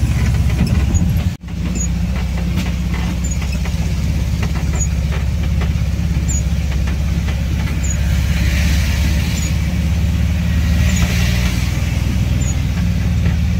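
Air-cooled VW Kombi engine running steadily under way, heard from inside the cab, with tyre hiss from the wet road. The sound cuts out for an instant about a second and a half in.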